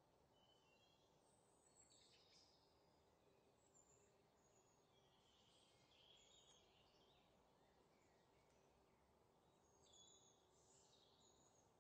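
Near silence: a faint low background hiss with scattered faint, short high chirps like distant birdsong.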